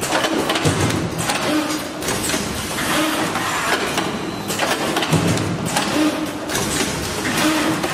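Automatic double-loop wire punching and forming machine running, with a continuous mechanical clatter and hiss. A short hum repeats about once a second as it cycles.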